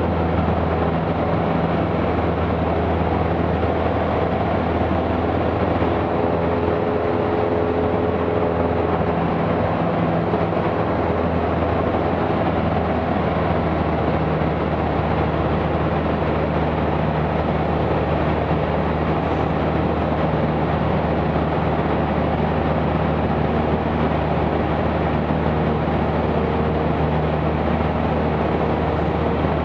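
Cessna 172's piston engine and propeller droning steadily in cruise flight, heard inside the cockpit with a constant rush of wind noise.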